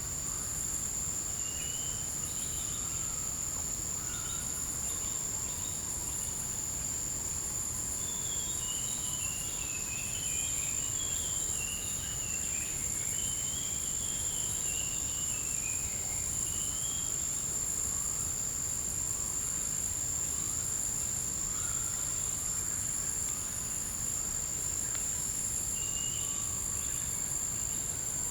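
Forest insect chorus: a steady, high continuous trill with a faint pulsing shimmer above it. Birds call over it with short chirps, including a falling run of quick notes about eight seconds in.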